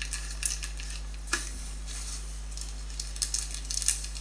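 Small plastic bag of spare printer parts rustling and crinkling in the hands, with one light knock about a second in. A steady low electrical hum runs underneath.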